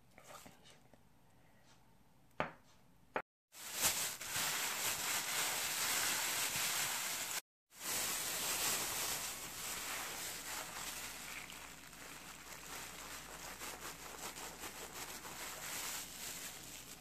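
Thin plastic bag crinkling and rustling as buttered biscuit crumbs are worked inside it and shaken out into a silicone mould, a dense crackle that starts about four seconds in, after two small knocks.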